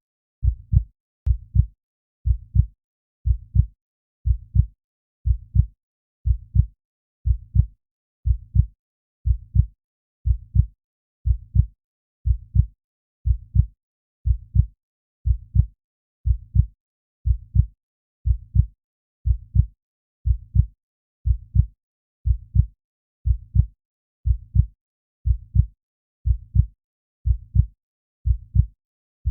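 Calm, steady heartbeat: low paired lub-dub thuds repeating evenly at about one beat a second.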